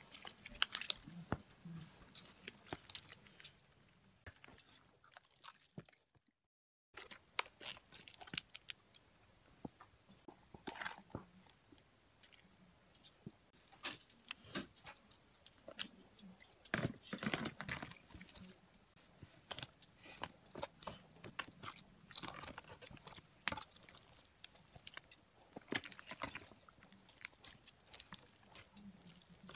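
Sticky slime being kneaded and squished by hand, with irregular wet squelches and little clicking pops as it is pressed and pulled. The sound cuts out completely for about a second, roughly six seconds in.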